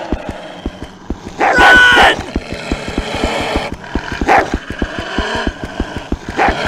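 Dogs barking and yelping as they run, over a fast, steady run of low thumps from their paws. The loudest bark comes about a second and a half in, with shorter ones near four and six seconds.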